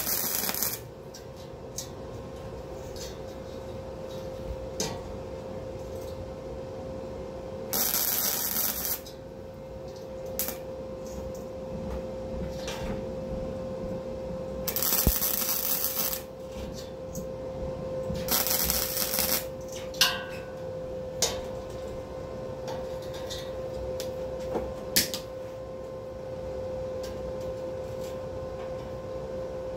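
Flux-core wire welder laying short tack welds: four bursts of arc noise about a second each, with a few sharp clicks between them and a steady hum underneath.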